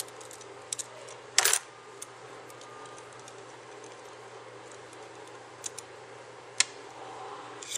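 Small metallic clicks and a brief clatter, scattered and sparse, from a C.A.Technologies Lynx 100C spray gun as its trigger is taken off; the loudest clatter comes about a second and a half in, and a single sharp click comes near the end.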